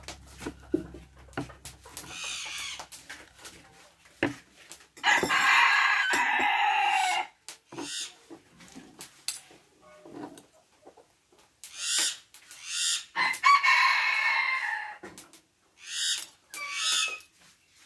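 A rooster crows several times, the longest and loudest call about five seconds in, with further calls later on. In between, a kitchen knife taps sharply on a wooden cutting board as chili peppers are chopped.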